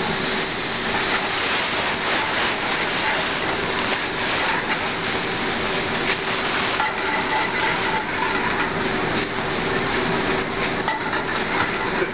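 Food sizzling in a frying pan: a steady, even hiss with scattered small crackles.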